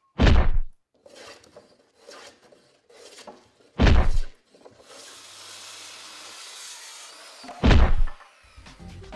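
Three heavy thuds about four seconds apart, each a short booming hit, with quieter scraping and cutting noise from wood and board being sawn between them.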